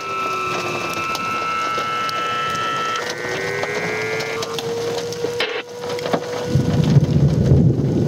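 Outdoor tornado warning siren wailing, its pitch sinking slowly, rising back and then holding steady. A loud low rushing noise of wind or rain comes in about two-thirds of the way through.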